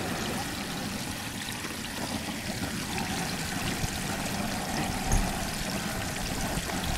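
A whole turkey deep-frying in a pot of hot oil on a propane burner: a steady sizzling and bubbling with fine crackles. There is a brief low thump a little after five seconds in.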